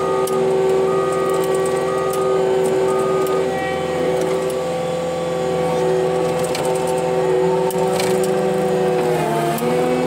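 Cat 289D3 compact track loader's diesel engine and hydraulics running steadily, heard from inside the cab. Its backup alarm beeps about once a second for the first three seconds. Near the end the engine note dips briefly as it takes load.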